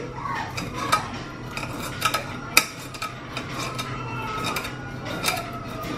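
Kitchen utensil and dishes clinking and scraping while stuffing is spooned into mushroom caps: scattered light clinks, the sharpest about two and a half seconds in.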